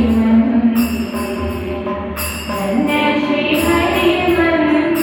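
Devotional bhajan singing: a sustained melodic vocal line with jingling percussion keeping a steady rhythm.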